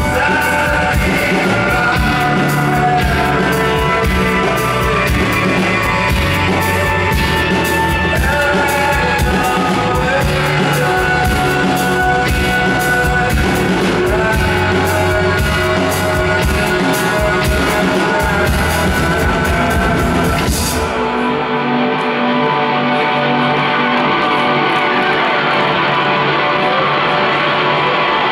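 A live rock band plays with a singer, acoustic guitar and drum kit, with drum and cymbal hits keeping a steady beat. About three-quarters of the way through, the drums and bass drop out, leaving guitar and held notes ringing on.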